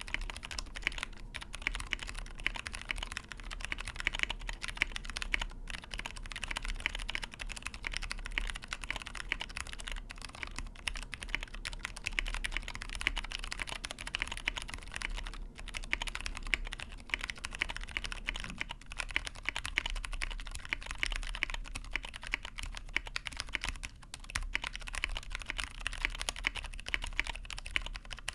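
Continuous fast typing on a Tofu65 mechanical keyboard with lubed Cherry Clear tactile switches in an aluminum plate and PBT keycaps: rapid keystrokes with a few brief pauses.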